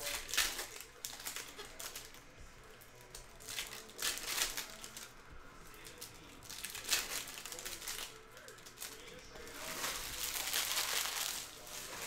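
Foil Donruss Optic retail card-pack wrappers crinkling in irregular bursts as packs are torn open and handled, with the longest stretch of crinkling near the end.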